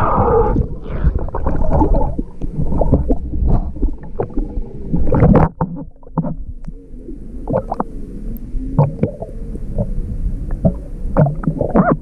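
Lake water sloshing and gurgling through a perforated metal sand scoop as it is dug into the bottom and lifted out, with short clicks and rattles of gravel in the basket.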